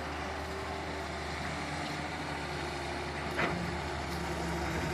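Wheel excavator's diesel engine running steadily, with one brief short sound about three and a half seconds in.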